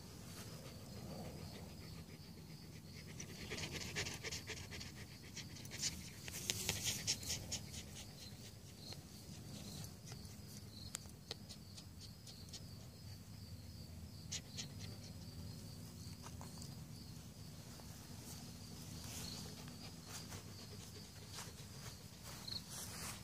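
A dog panting in short rapid breaths that come and go in spells, over a steady low hum.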